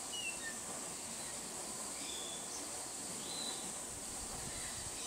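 Steady high-pitched insect drone, with a few short bird chirps scattered through it, one sweeping down in pitch near the end.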